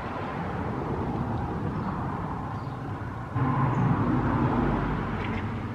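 Outdoor traffic noise, with a louder low rumble, like a vehicle going by, that swells up a little past the midpoint and fades out about two seconds later.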